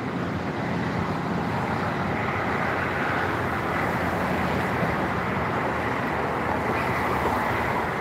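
Steady rush of road traffic passing on the bridge, mixed with wind.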